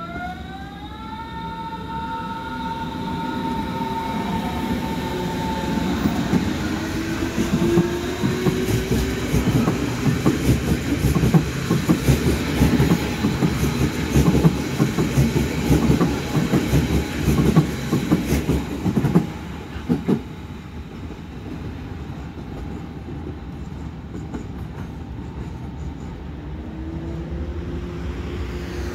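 Berlin S-Bahn class 481 electric train pulling away: its traction motors' whine rises in pitch in several tones over the first couple of seconds, then the wheels clatter rhythmically over the rail joints as the cars run past, loudest in the middle, before the sound drops away about twenty seconds in.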